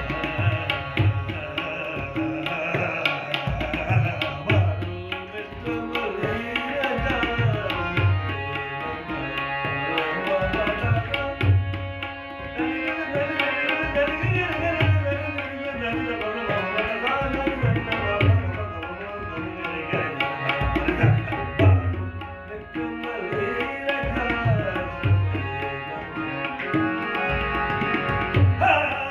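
Tabla playing a steady rhythm with regular deep bass-drum strokes, over the sustained chords and melody of a harmonium, accompanying a bandish in Raag Assa.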